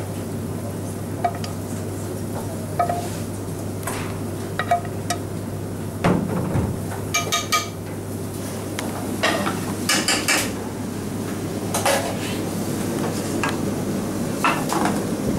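A metal frying pan and utensils clattering and clinking against a plate and a stainless steel counter, with sharp ringing clinks in small clusters about seven and ten seconds in. A steady low hum runs underneath.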